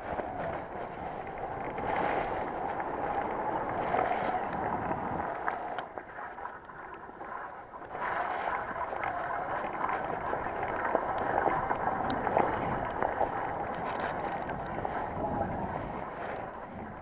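Mountain bike riding fast over a wet, muddy dirt trail: a steady rush of tyres on wet ground and wind on the microphone, with frequent clicks and rattles from the bike over bumps. It eases briefly about six seconds in.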